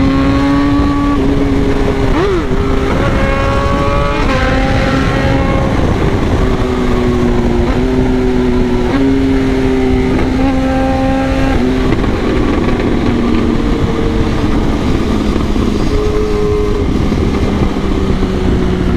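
Kawasaki ZX-10R inline-four engine running as the bike is ridden, its note stepping up and down every second or two with throttle and gear changes, over a heavy low rumble.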